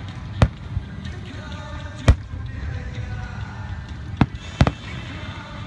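Fireworks shells bursting overhead: four sharp booms, about half a second in, at two seconds, and two close together just past four seconds, over a steady low rumble.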